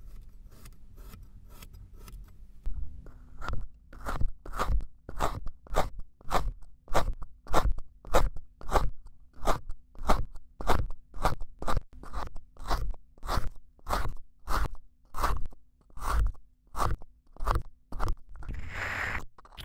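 Knife blade slicing down through a loaf of packed kinetic sand again and again, about two short cuts a second in an even rhythm, softer and sparser for the first few seconds. Near the end a longer scraping sound.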